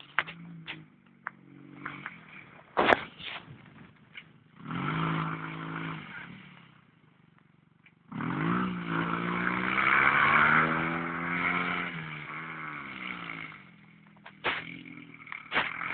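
650 cc dune buggy engine revving as the buggy drives on snow, revs rising and falling in a short spell about five seconds in and a longer, louder one from about eight to thirteen seconds, running lower in between. Sharp clicks come about three seconds in and again near the end.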